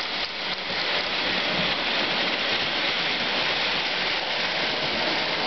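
Lionel O-gauge toy trains running on three-rail tinplate track, a steady rushing whir of wheels and motors.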